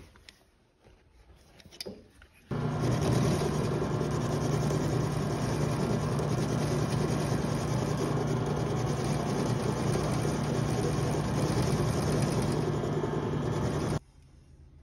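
Metal lathe running steadily with a low hum, its chuck spinning a steel threading-die blank against a tool bit. It starts abruptly about two and a half seconds in and cuts off suddenly near the end, after a few faint clicks.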